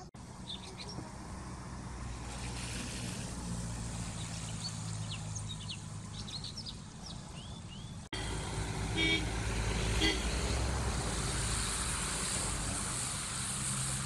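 Outdoor ambience made of two spliced takes over a steady low engine hum. In the first, birds chirp repeatedly; after a sudden cut about eight seconds in, a vehicle horn gives two short toots about a second apart.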